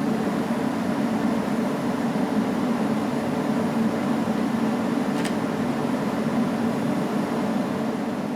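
Steady fan-like motor hum with a low drone, and one short, light click about five seconds in.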